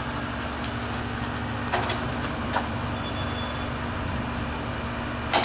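Steady low background hum and rumble, with a few faint clicks near the middle.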